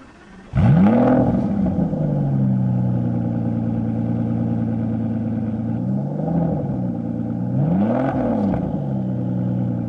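Car engine starting up about half a second in and settling into a steady idle, then revved in two short blips, the second bigger.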